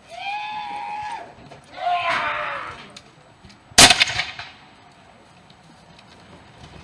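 Two drawn-out shouted calls, then a single black-powder gunshot from a reenactment firearm cracks out about four seconds in, the loudest sound, with a brief crackling echo.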